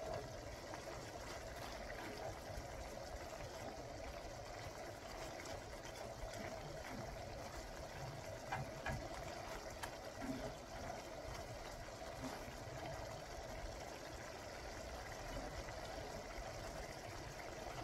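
Pan gravy simmering on the stove as it thickens: a steady, low bubbling hiss, with a few faint clicks partway through.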